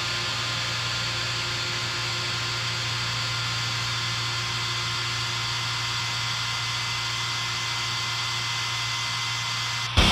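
Steady electrical hum and hiss, the noise of the band's amplified rig in a raw black metal recording, with a low buzz and a few faint steady tones. Distorted metal music crashes in abruptly at the very end.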